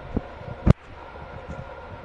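Footsteps on a leaf-strewn forest path, recorded by a compact camera's built-in microphone, with irregular low thumps, a faint steady hum underneath and one sharp click about two-thirds of a second in.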